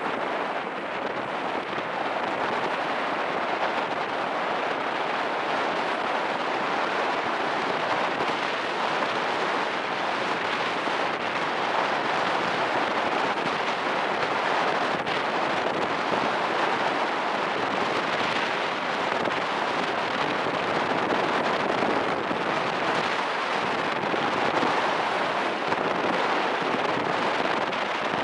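Steady rush of wind buffeting the microphone and water hissing past the hull of an aluminum motorboat running over choppy sea.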